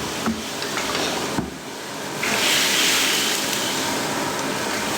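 Steady hissing from the cooking wok on the stove, jumping sharply louder and brighter about two seconds in and then holding steady.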